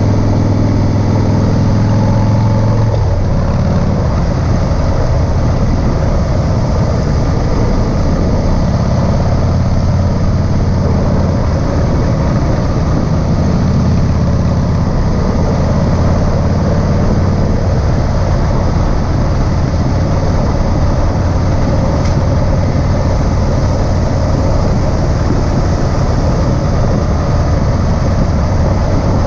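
Harley-Davidson CVO ST motorcycle's V-twin engine running steadily; its note changes about three seconds in and stays rougher after that.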